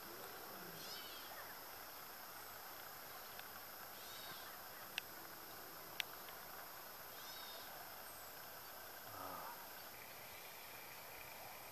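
Faint outdoor ambience: a steady low hiss with a few short chirps about three seconds apart, and two sharp clicks a second apart near the middle.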